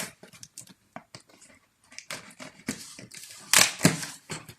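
A cardboard box being handled and opened: a run of scrapes, rustles and clicks, loudest a little past halfway through.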